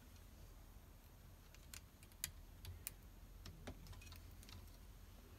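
Faint, scattered clicks and taps of a Raspberry Pi circuit board being handled and fitted against a 3D-printed plastic case, over a low steady hum. The handful of sharp clicks fall in the middle.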